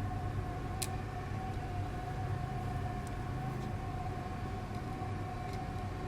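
A steady electrical hum with a constant mid-pitched whine, and a few faint light clicks of small parts being handled.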